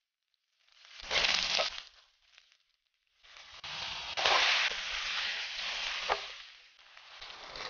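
Stir-frying in a hot wok: aromatics (ginger, garlic, scallion, dried chilies) sizzle in oil under a spatula in a short burst. Then, after a brief silence, tomato chunks tipped onto the pork sizzle loudly as they are stirred, with a sharp spatula knock against the pan.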